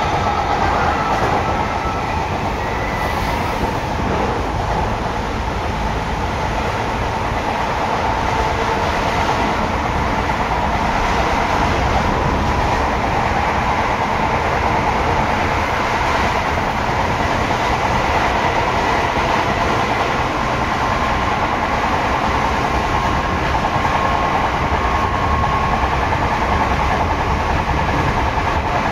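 Seibu 6000 series electric train running between stations, heard from inside the car above the line breaker: steady rumble of wheels on rail with the whine of its Hitachi GTO inverter and traction motors.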